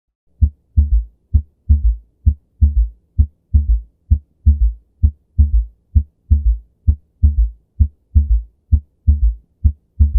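Human heart sounds: a steady lub-dub heartbeat at about 65 beats a minute, each beat a short sharp sound followed by a longer, drawn-out one.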